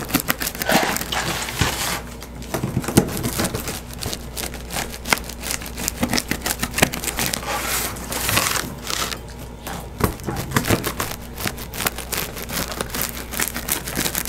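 Close-up eating sounds: pizza being chewed and its crust crunched, a dense run of crisp clicks and crackles, while a wheel cutter is worked through a pepperoni pizza.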